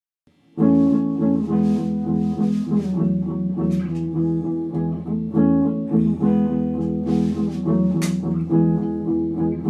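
Music: the opening of a rock song, a plucked guitar part over a sustained low bass note, starting about half a second in.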